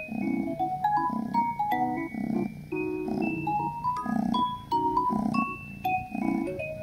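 Background music: a light melody of short notes on a mallet instrument, over a steady beat.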